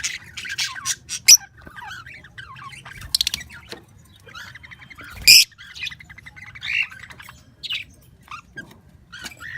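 Pet birds squawking and chirping, a jumble of short separate calls with loud harsh squawks about one, three and five seconds in.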